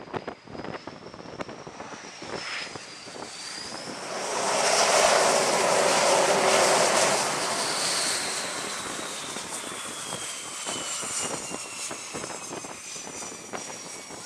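F/A-18 fighter's jet engines: a high turbine whine that slowly falls in pitch, under a loud roar that swells about four seconds in, holds for about three seconds and then fades.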